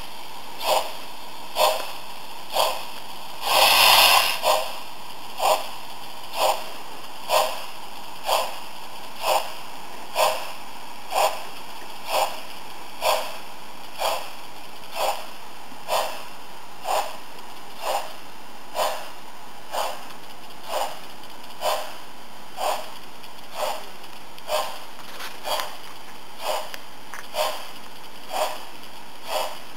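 Märklin model BR 10 steam locomotive's digital sound decoder playing slow, steady exhaust chuffs, about one a second, over a constant hiss, heard through the model's small loudspeaker. About four seconds in, a brief louder hiss of steam breaks through.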